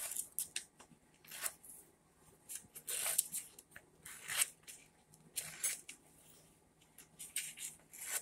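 Scissors cutting paper in a string of short, irregular snips, with the sheet rustling as it is handled.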